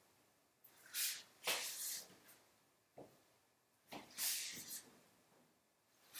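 Faint, scattered scuffs and shuffles of sandalled feet on a tile floor as a person steps and shifts pose, about four short noises in all.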